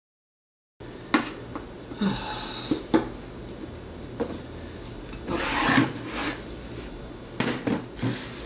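Kitchen handling sounds starting about a second in: a knife knocking and scraping on a wooden cutting board as soft eggfruit is cut, then knocks and clinks as a glass blender jar is handled on its base.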